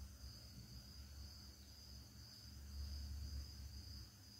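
Faint, steady high-pitched trilling of insects such as crickets, over a low steady hum.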